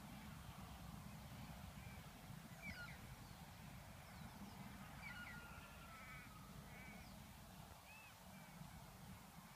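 Near silence with faint bird calls: scattered short whistled notes and a brief warbling run about halfway through, over a low steady rumble.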